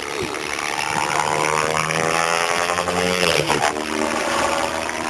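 Align T-Rex 700E electric RC helicopter in flight: a steady whine from the motor and main rotor, its pitch sliding up and down a few times as it manoeuvres.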